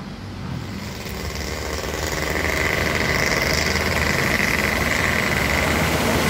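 A vehicle engine running steadily, growing louder over the first two to three seconds and then holding at that level.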